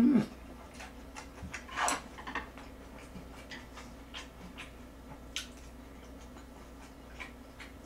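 Close-miked mouth sounds of a person eating grilled pork belly: chewing and lip-smacking with scattered light clicks. There is a short rising hum from the eater at the very start.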